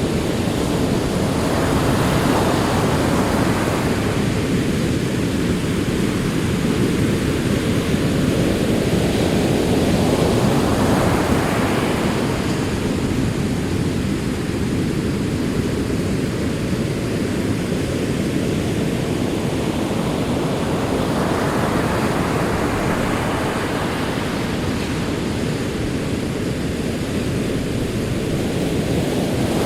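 Sea waves breaking on a shore and washing back: a continuous rushing wash with three surges, a wave breaking about every ten seconds, each fading slowly.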